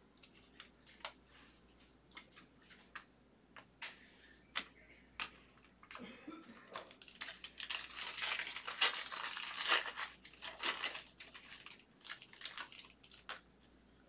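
A trading card pack wrapper being cut and torn open. Scattered small clicks and rustles of handling come first, then a few seconds of dense crinkling and tearing about halfway through, then a few more clicks as the cards are taken out.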